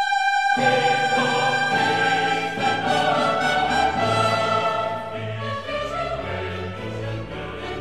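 Background music of sustained, held notes. A lone high note gives way to a fuller texture with bass notes about half a second in.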